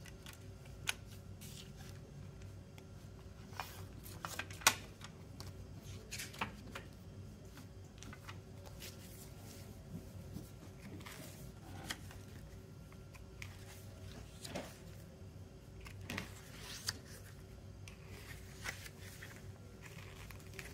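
Hands handling a CD in its plastic jewel case and its paper booklet: scattered light clicks and taps, with paper rustling as the booklet is put down and opened, and one sharper click about four and a half seconds in.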